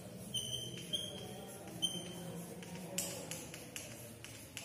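Chalk writing on a blackboard: a few short, high squeaks as the chalk strokes in the first two seconds, then light taps and scrapes of the chalk on the board.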